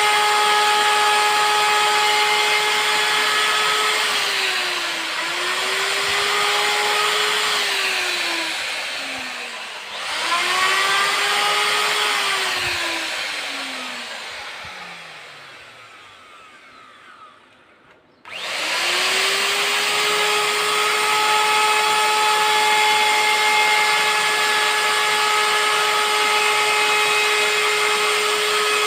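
Handheld CNC router's spindle motor running at high speed with a steady whine. It is shut off and winds down, falling in pitch, then spins back up several times. One wind-down fades almost to nothing about two thirds of the way in before the motor spins up again and runs steadily.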